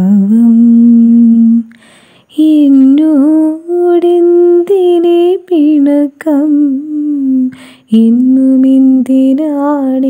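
A voice humming a slow wordless melody, holding long notes that bend and slide, with a short pause about two seconds in.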